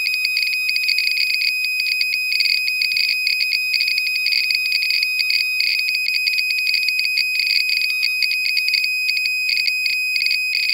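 DIY Geiger counter with an SBM-20 tube sounding its high-radiation alarm: a steady high-pitched beep over a rapid, irregular crackle of counts. The counter is reading about 20,000 counts per minute, roughly 90 to 105 µSv/h, from a uraninite (pitchblende) ore sample.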